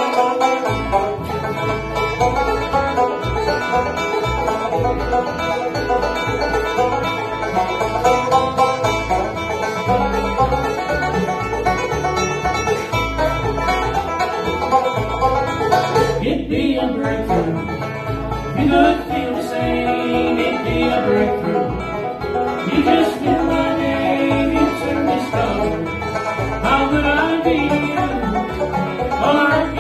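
Bluegrass band playing live: five-string banjo, acoustic guitar, mandolin and upright bass, striking up together at the start with a steady driving beat.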